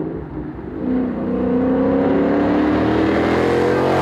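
Ford Mustang GT's 5.0 V8 through a Borla ATAK cat-back exhaust, accelerating hard: the exhaust note climbs steadily in pitch from about a second in. Near the end there is a rush of noise as the car passes close by.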